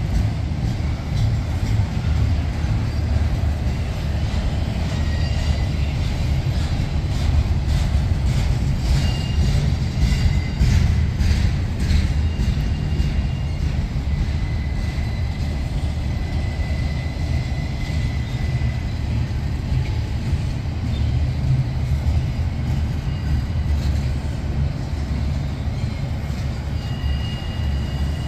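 Double-stack intermodal freight cars rolling past: a steady low rumble of steel wheels on rail, with a run of clicking wheel clatter around ten seconds in.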